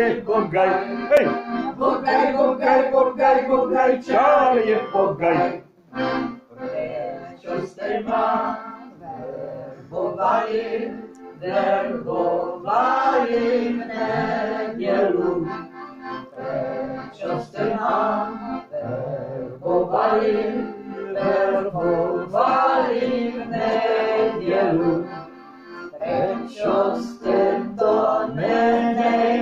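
A man singing a Czech folk song while accompanying himself on a piano accordion, with short pauses between phrases.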